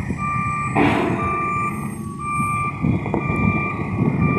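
Telehandler's reversing alarm beeping about once a second over the steady rumble of its diesel engine, with a short hiss about a second in.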